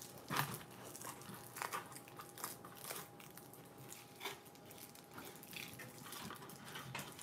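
Plastic-wrapped polymer clay blocks being handled and set into a cardboard box: faint, scattered light taps and crinkles of the wrappers.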